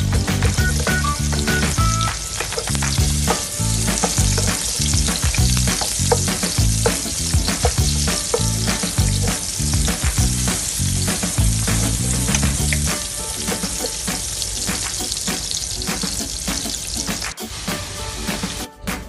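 Food sizzling in a hot pan as it is stir-fried, with frequent short clicks and scrapes of the utensil against the pan, over background music.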